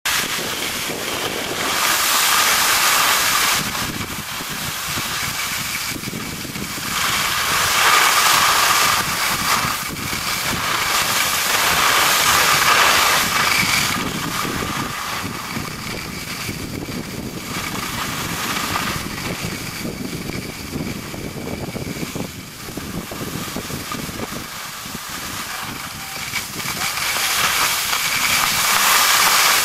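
Skis hissing and scraping over packed snow, mixed with wind on the microphone. The noise rises and falls every few seconds.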